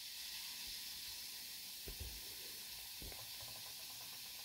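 Faint steady fizzing hiss of CO2 gas from a DIY citric-acid and baking-soda generator being pushed out of an aquarium diffuser as a fine mist of bubbles, with two faint low knocks about two and three seconds in.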